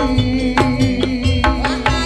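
Javanese gamelan ensemble playing a gending live: percussive strokes about twice a second over a long held note and ringing pitched instruments.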